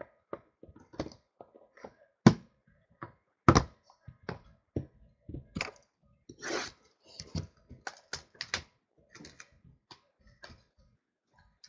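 Hands handling a shrink-wrapped trading card box on a table: irregular taps, knocks and clicks, with brief crinkles of the plastic wrap. Two louder knocks come about two and three and a half seconds in.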